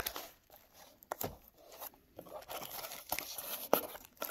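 Cardboard and plastic packaging being handled: a handful of short, separate rustles and taps, with crinkling building near the end as a hand reaches into the box of plastic-bagged parts.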